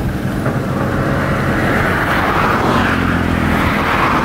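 Road traffic: a motor vehicle driving past, its tyre and engine noise swelling and fading.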